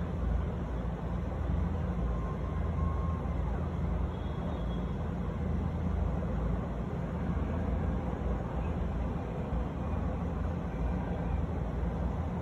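Steady low rumble of distant city traffic, with no firework bangs.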